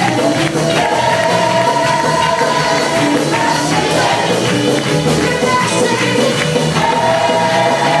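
Live gospel worship band and singers performing a song, voices holding long sung notes over the band.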